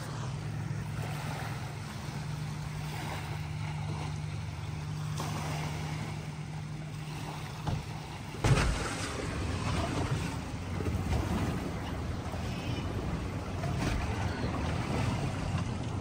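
A boat's outboard motor runs steadily at low speed, with wind and water around it. About eight and a half seconds in there is a sharp thud, after which the motor sound turns rougher and more uneven.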